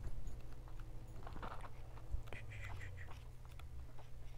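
Pages of a thick paperback book being leafed through: faint scattered rustles and soft clicks over a low steady hum.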